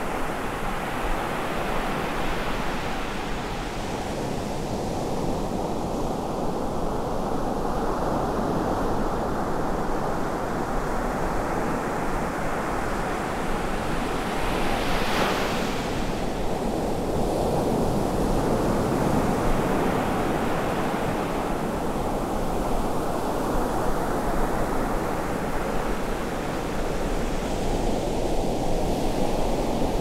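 Ocean surf breaking and washing up a sand beach in a continuous, swelling rush, with one sharper wave crash about halfway through.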